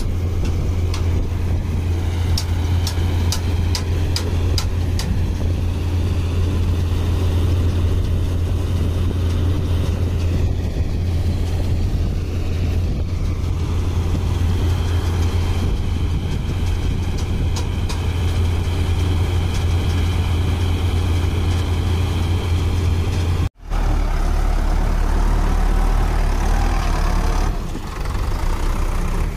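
Tractor and combine harvester diesel engines running steadily with a deep drone. A run of light clicks comes a few seconds in. About three-quarters through, a sudden cut gives way to a deeper engine note as the Sonalika Tiger tractor drives in mud.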